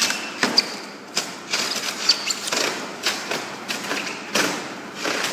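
A small hand blade scraping and cutting at a block of rigid foam in short, irregular strokes, with occasional thuds.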